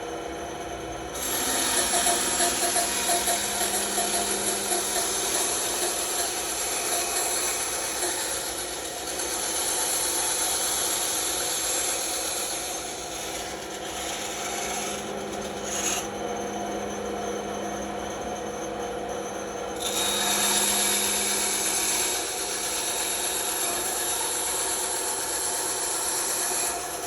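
Bandsaw running with its blade cutting through wood. The cutting noise starts about a second in, eases off for a while in the middle and picks up again later.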